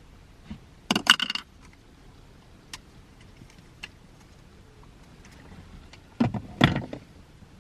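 Small hard trim parts clicking and rattling as they are handled and fitted, in two short bursts about a second in and again near the end, with a few faint ticks between.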